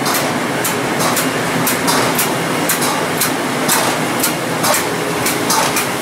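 Plating-line equipment running, including filter pumps: a loud, steady machinery noise with a sharp hissing pulse about twice a second.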